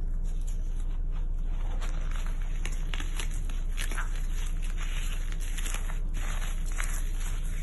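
Dry clay lumps crunching and crumbling as hands squeeze and break them, a dense run of irregular sharp crackles and snaps over a steady low hum.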